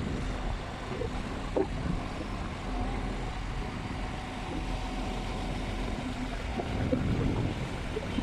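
An engine running steadily, a low rumble without change.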